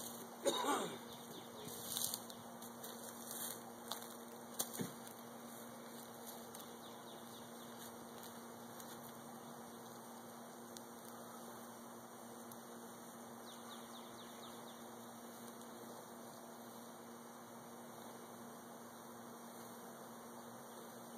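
Honey bee swarm buzzing in a steady low drone, with a few sharp knocks in the first five seconds.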